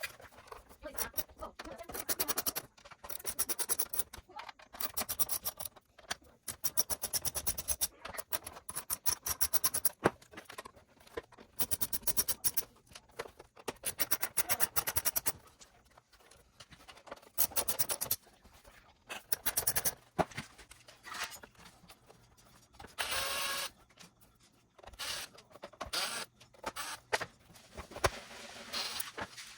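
Irregular runs of rapid clicking and scraping from hands working on an Xbox One S console's hardware, with short pauses between the runs.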